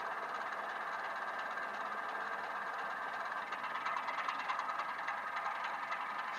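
Model train running on an EM gauge layout: a steady whir with faint rapid ticking, a little louder from about halfway through.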